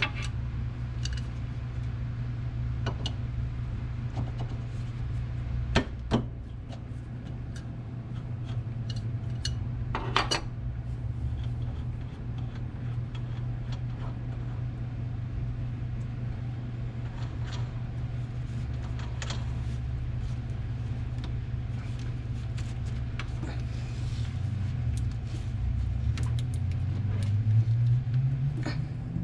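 Wrenches and hydraulic fittings clinking and knocking during work on a skid steer's hydraulic hoses, over a steady low hum. The sharpest knocks come about six and ten seconds in, and a low tone rises in pitch near the end.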